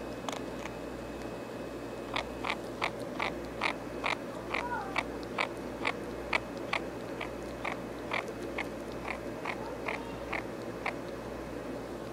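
Ferret eating: a steady run of short crisp clicks, two to three a second, starting about two seconds in, with a brief squeak a little before halfway.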